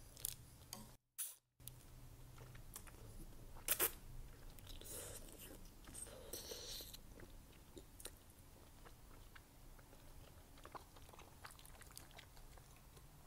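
Close-miked chewing and slurping of slippery wide Korean glass noodles, soft wet mouth sounds with a louder slurp a few seconds in. A sharp click about four seconds in.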